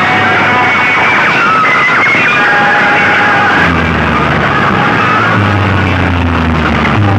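Very loud sound-system playback through banks of horn loudspeakers, with warbling, siren-like electronic tones. About three and a half seconds in, deep steady bass notes join from the bass speaker boxes.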